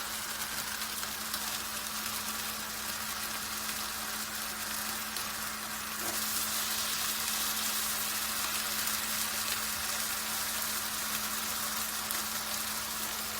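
Slices of ham frying in a pan over low heat, mostly in their own fat: a steady sizzle that grows a little louder about six seconds in.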